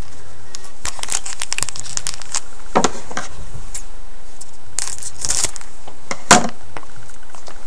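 Hockey card pack wrapper crinkling and tearing as it is cut open with scissors and the cards are pulled out, in short crackly rustles several times.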